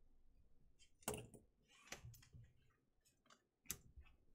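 Near silence broken by a few faint clicks and rustles from hands handling card packs on the table; the sharpest clicks come about a second in and again near the end.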